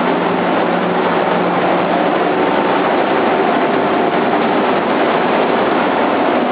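Sunflower seed microwave roasting machine running: a loud, steady, even mechanical noise with a faint hum under it.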